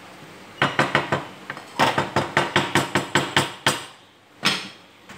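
Wooden spoon knocking against the sides of a metal saucepan while stirring and roasting minced meat, a fast run of sharp knocks at about six a second. After a short pause there is one more single knock.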